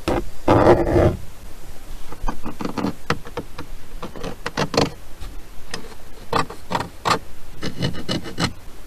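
Short, irregular creaks and rubbing scrapes from a Dacia car's body or trim, coming in uneven bursts with brief gaps.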